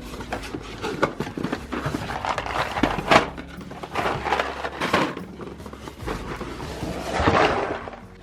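Groceries and containers being handled and put away in a kitchen: a run of light knocks and clatters, with a sharper knock about three seconds in and a longer, noisier handling sound near the end.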